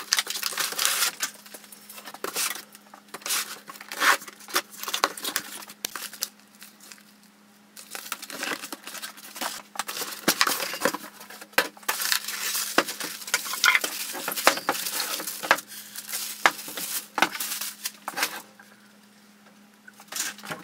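Cardboard motor carton being unpacked: plastic strapping pulled off, packing tape torn and cardboard rustling and scraping in irregular bursts, with two short pauses.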